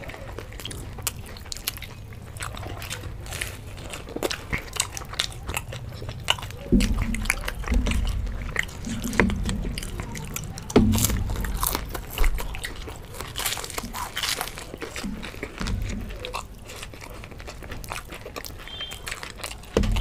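Close-up biting and chewing of crisp fried samosas: crackly crunches of the pastry shell and wet chewing, with a couple of dull thumps about a third and halfway through.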